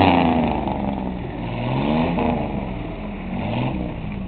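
Pickup truck's engine revving up and falling back a few times as the truck sits stuck in a mud hole.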